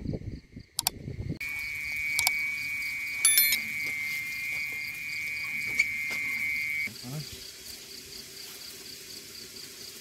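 Insects chirping at dusk: a faint, evenly pulsing high chirp throughout. A louder steady shrill buzz joins about a second and a half in and cuts off about seven seconds in.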